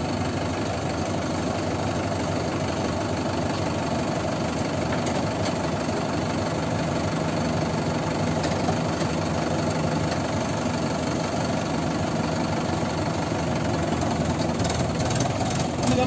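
Diesel engines of a Mahindra tractor and a JCB 3DX backhoe loader running steadily at close range, with a knocking diesel beat.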